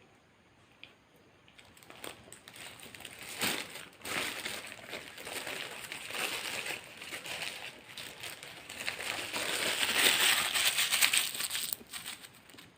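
Paper burger wrapper being unwrapped and crumpled, a run of crackly rustles that grows loudest near the end, then stops suddenly.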